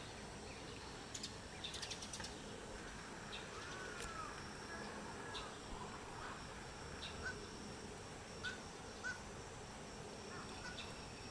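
Faint, short peeps of spot-billed duck ducklings, single notes about a second apart in the second half, over a steady high insect drone. A few soft clicks sound about a second in.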